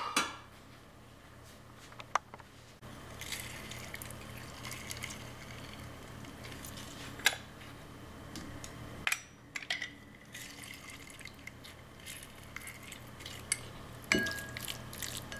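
Lime juice squeezed from a yellow hand-held lime squeezer, trickling and dripping into a ceramic bowl of flaked tuna, with a few sharp clicks and taps scattered through it over a steady low hum.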